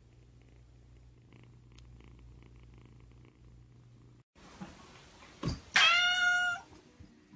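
A cat purring faintly for about four seconds. Then a soft thump and a single loud meow about six seconds in, less than a second long.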